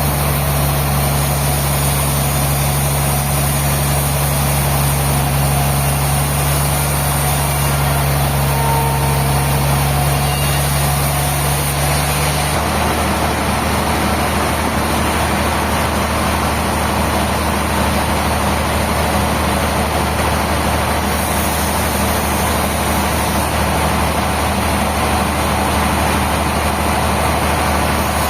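Sawmill machinery's engine running steadily and loudly, its low note shifting abruptly about twelve seconds in.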